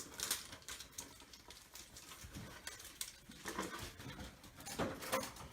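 Pokémon card collection box being unpacked by hand: packaging rustling and crinkling, with irregular small taps and scrapes.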